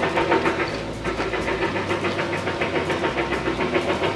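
A machine running steadily with a fast, even pulse.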